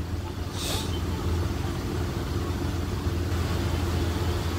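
Steady low machine hum, with a short hiss a little under a second in.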